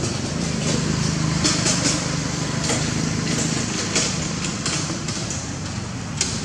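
Steady low drone of a running motor, with scattered light crackles on top.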